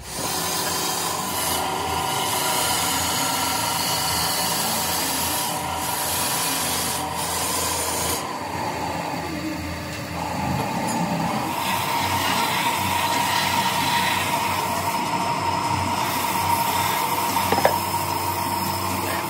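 Wood being rubbed and rasped, as in sanding a turned wooden pot, over a workshop machine running with a steady whine. The sound turns duller about eight seconds in and brightens again a few seconds later.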